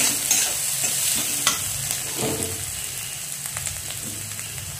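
Onions, curry leaves and coarsely ground fennel, cumin, pepper, ginger and garlic paste sizzling in hot oil in a kadai, stirred with a steel spatula that scrapes and clicks against the pan. The sizzle eases a little toward the end.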